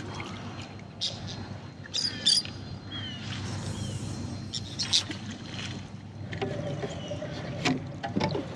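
Quiet on a small fishing boat: a steady low haze of wind and water, with scattered clicks and knocks of gear being handled on deck and a few short high chirps about two seconds in.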